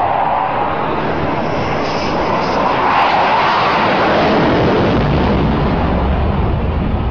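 Fighter jet flying low and fast past the listener: a loud, steady jet roar that swells about three to four seconds in, then gives way to a deep rumble.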